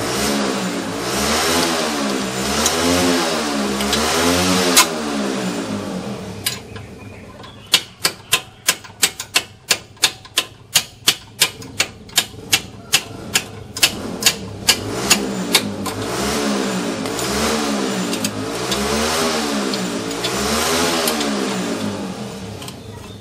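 An engine-like drone that swings up and down in pitch about once a second, like an engine revved over and over. In the middle it gives way to a run of sharp metallic knocks, about two a second, from tool work on the front wheel hub and suspension.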